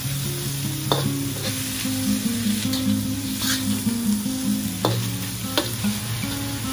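Diced chicken, garlic, shallots and dried shrimp sizzling in hot oil in a wok while a spatula stirs and tosses them, with a few sharp knocks of the spatula against the wok.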